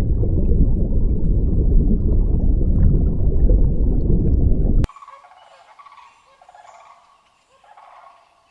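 A loud, low rumbling noise for about five seconds that cuts off suddenly, followed by quieter farm-bird calls repeated about four times.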